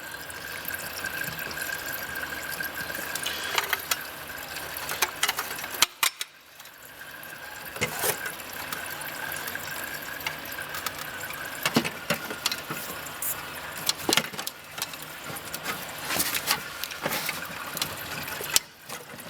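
A steady trickle of water seeping from the opened hot tub heater plumbing, with scattered clicks and knocks of the heater and its fittings being handled.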